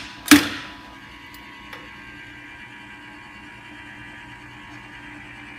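Maxon Series 5000 safety shutoff valve cycling open: a sharp snap as the solenoid pulls in, then the steady hum of the motor operator driving the valve against its return spring.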